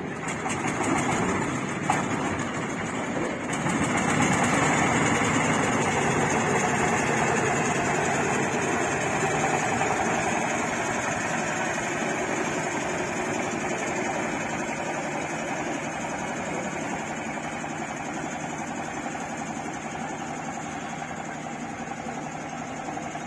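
Engine of a small wooden river boat running. It gets louder a few seconds in as the boat pulls away, then fades slowly as the boat moves off across the water.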